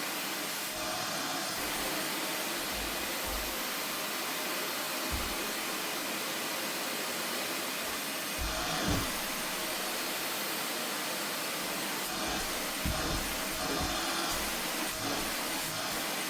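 Vacuum cleaner running steadily as it is worked over sofa upholstery, a continuous whooshing hiss with a faint high whine. There are a few short low bumps, and the pitch wavers briefly about nine seconds in.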